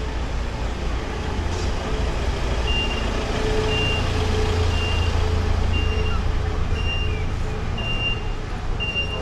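Delivery van's reversing alarm beeping about once a second, starting about three seconds in, over the low rumble of its engine running.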